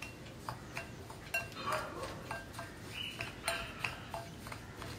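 Steel spoon stirring a dry semolina mix in a glass bowl, clinking lightly against the glass several times with short bright rings between soft scraping.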